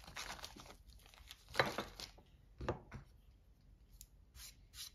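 Packaging crinkled and rustled by hand in a few short bursts, the loudest about one and a half seconds in.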